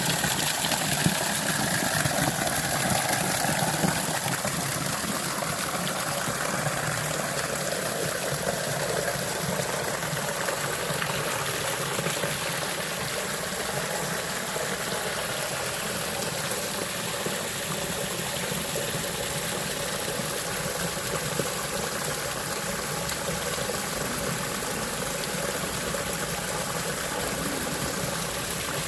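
Hot spring waterfall: water falling and splashing in a steady rush, a little louder in the first few seconds.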